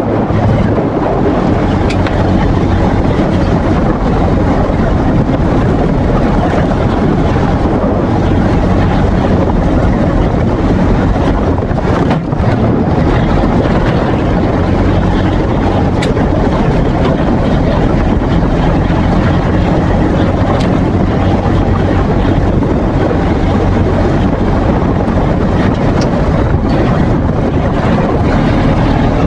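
Polaris RZR side-by-side's engine running loud and steady while under way, with a brief dip about twelve seconds in.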